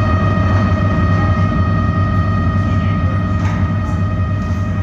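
Dark ambient drone from an electric guitar run through a large pedalboard of effects into an amplifier: a loud, sustained rumbling wash with several steady held tones above it.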